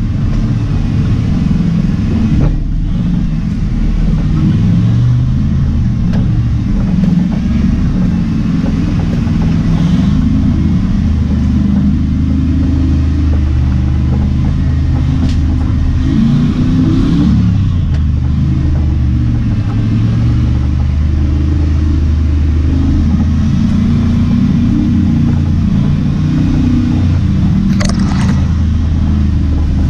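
LS-swapped Jeep Wrangler TJ's 5.3-litre V8 running at low revs while crawling a rocky trail, its pitch rising and falling with the throttle. Near the end, branches brush and scrape against the vehicle.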